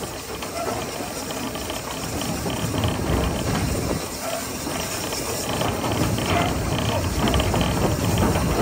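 LSWR T3 class 4-4-0 steam locomotive 563 running along the line, heard from its cab: a steady rumble and rattle of the running engine and wheels on the rails, growing a little louder.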